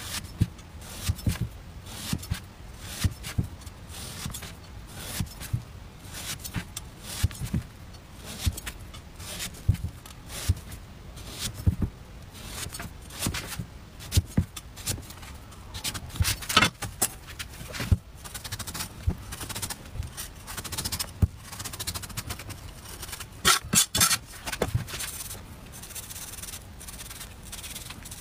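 Chinese cleaver cutting into a watermelon radish: repeated crisp strokes, the blade knocking on the wooden chopping board about one or two times a second, with quicker flurries of cuts about halfway through and again near the end.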